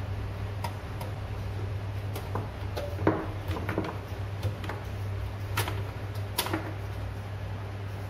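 Scattered clicks and knocks of cables being unplugged from the back of a desktop computer case and laid down, with a small cluster of handling noise about three seconds in and two sharp clicks near six seconds, over a steady low hum.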